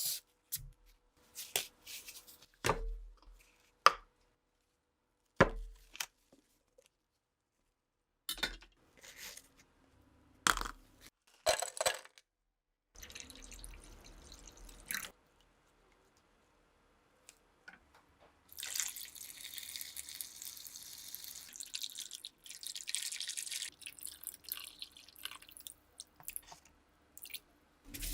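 Hand work on parts at a workbench: scattered sharp clicks and knocks, then a steady hiss for about five seconds past the middle.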